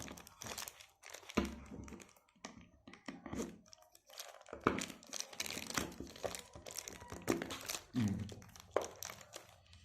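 Packaging wrap crinkling and rustling in irregular bursts as a wristwatch is unwrapped by hand, with a few knocks from handling.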